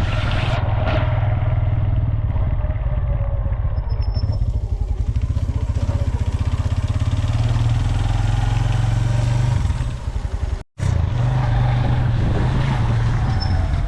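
Motorcycle running on the move, with a steady heavy low rumble. The sound cuts out abruptly for a moment about ten and a half seconds in.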